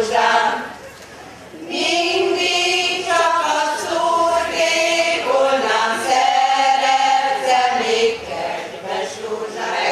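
Women's choir singing, several voices together, with a short break between phrases about a second in.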